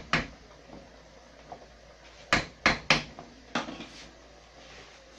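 Wooden spoon knocking against a frying pan and bowl: one sharp knock at the start, a quick run of three a little over two seconds in, and a last one about half a second later.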